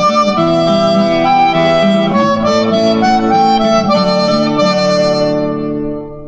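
Instrumental closing music: a melody over held chords, fading out near the end.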